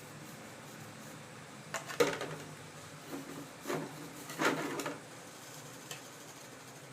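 Handling noises from cleaning a car's cooling-fan blade assembly: a sharp knock about two seconds in, then a few short bursts of scraping and rubbing, with a small tick near the end.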